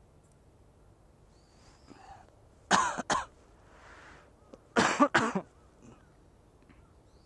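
A person coughing: two short double coughs, about two seconds apart.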